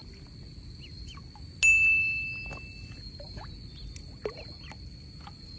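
Ducklings peeping, many short falling chirps over a steady high thin whine. About one and a half seconds in, a sudden loud ringing tone sounds once and fades over about a second.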